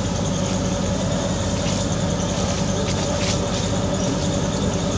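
Steady mechanical hum with a constant hiss, and a few faint clicks about two to three and a half seconds in.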